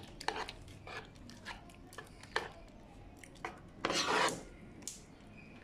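Spoon stirring a thick milk-and-starch cream in a non-stick pot, scraping along the pot with scattered light knocks and one longer, louder scrape about four seconds in.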